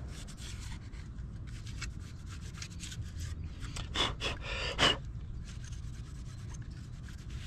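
Hands handling a thin old rubber gasket and its replacement: light rubbing and rustling, with two louder scrapes a little past halfway.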